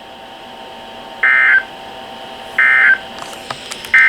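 Three short bursts of NOAA Weather Radio SAME/EAS digital data tones, evenly spaced about a second and a half apart, over faint radio hiss. They are the end-of-message code that closes a Special Marine Warning broadcast. A few faint clicks come just before the last burst.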